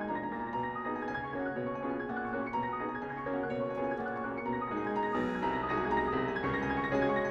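Background music: piano playing a flowing melody, with soft mallet-percussion notes.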